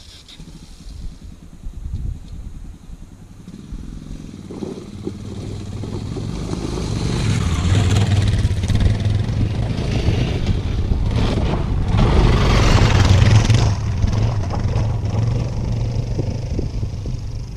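Yamaha XT600E's single-cylinder four-stroke engine revving hard under load as the motorcycle climbs a steep trail of loose rocks, with the clatter and scrape of tyres over the stones. The engine comes in a few seconds in and grows louder, loudest about two-thirds of the way through.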